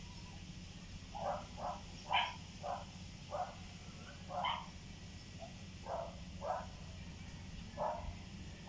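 Faint dog barking: about ten short barks at irregular intervals, some coming in quick pairs.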